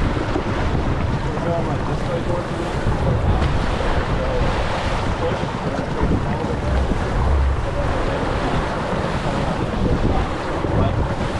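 Steady wind buffeting the microphone over water rushing and splashing along the hull of a Precision 185 sailboat heeled under sail through choppy water.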